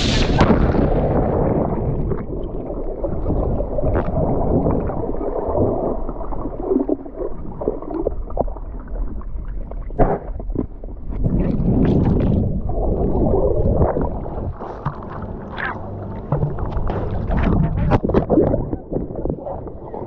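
Muffled underwater noise: the churn and gurgle of water and bubbles, with scattered clicks and knocks. A bright rush at the start dulls within about a second.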